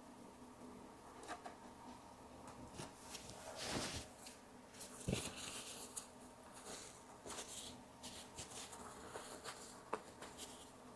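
Faint, scattered soft swishes and small taps of watercolour painting at the desk: brush strokes on paper and materials being handled.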